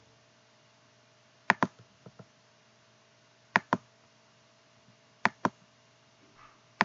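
Computer mouse clicking in quick pairs, a pair roughly every two seconds, with a fainter pair just after the first.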